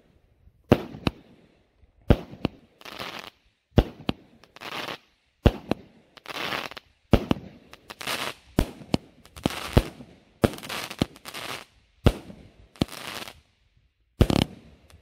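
Consumer fireworks cake (battery) firing shot after shot, roughly one every second to second and a half. Each shot is a sharp pop, mostly followed by a noisy crackling burst lasting up to a second as the aerial shell breaks.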